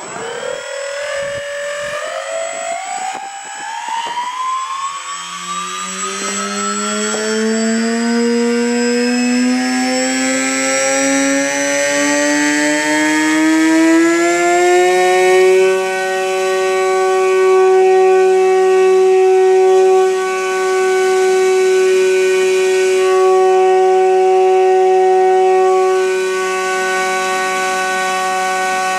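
Electric motor and propeller of an EasyStar 2 RC plane spinning up under throttle: a whine that rises steadily in pitch for about fifteen seconds, then holds steady at full throttle, dipping briefly twice.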